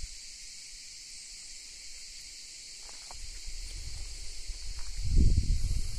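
Steady high-pitched insect chorus. A low gusty rumble of wind on the microphone builds from about halfway and is loudest near the end.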